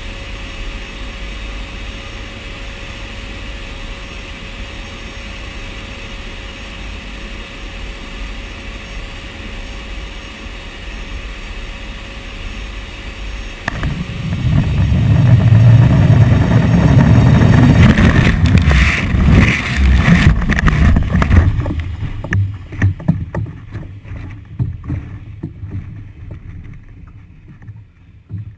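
Steady drone of the C-130J Hercules' turboprop engines heard from inside the cargo hold. About halfway through it gives way suddenly to loud wind buffeting and rumbling with rattles and knocks as the bundle leaves the aircraft. Near the end this fades to fluttering wind noise as the bundle drifts under its parachute.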